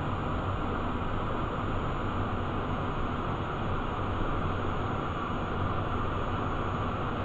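Steady cockpit noise of a Cessna Citation 501 in its climb just after takeoff: its two Pratt & Whitney JT15D turbofans at climb power under a constant rush of air, with a low hum and a faint, thin, high steady whine.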